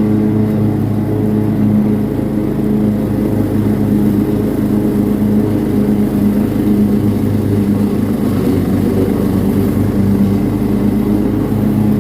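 Cub Cadet riding lawn mower engine running steadily at an even speed.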